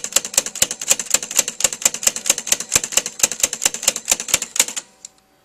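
Sony TC-580 reel-to-reel tape transport mechanism clattering with a rapid, even run of clicks, about nine a second, that stops near the end: the jammed transport failing to run properly.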